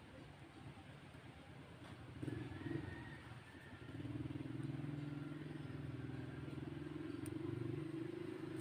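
A vehicle engine running with a steady low hum that grows louder about four seconds in and holds.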